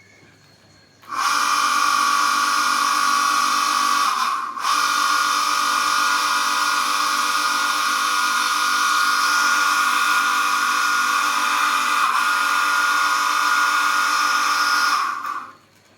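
Electric motor switched on and running at steady speed with a high, even whine. It briefly dips about four seconds in, picks up again, and cuts off near the end.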